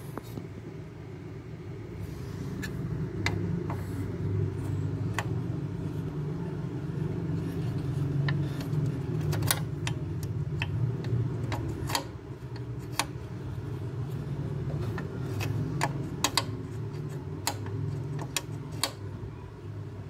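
Scattered sharp metallic clicks and knocks from a hand working the miter saw's bevel adjustment and lock bolt, at irregular intervals over a steady low rumble.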